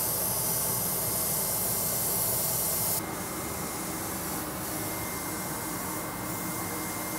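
Airbrush spraying gloss black lacquer as a light dust coat: a steady hiss of compressed air and paint mist, with a faint steady high whistle under it. The hiss drops slightly and abruptly about three seconds in.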